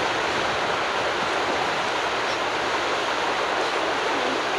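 Steady rush of a small waterfall and rapids pouring over rock ledges.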